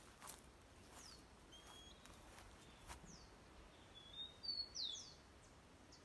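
Faint bird calls: a few scattered short, high chirps, several sweeping downward, with a louder cluster of chirps about four to five seconds in.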